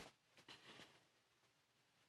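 Near silence: room tone, with a faint brief sound about half a second in.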